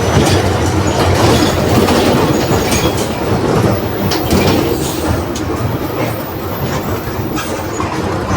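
Marcopolo Torino bus on a Volkswagen 17.230 OD chassis on the move, heard from inside: the engine's hum sits under a steady road noise, with the body and fittings rattling and clattering throughout.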